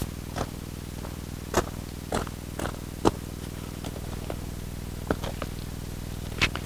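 Boots crunching on desert gravel in a handful of separate, irregular steps, then the rustle of a bag being picked up and a folding tripod stool taking a person's weight near the end.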